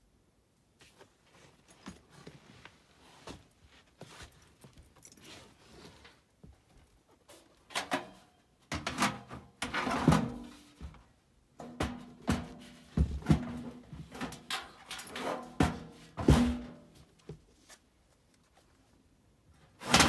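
A sheet-metal furnace blower housing and a blower motor being handled and fitted together: irregular metal knocks, scrapes and rattles, light at first and then busy, with one sharp knock at the end.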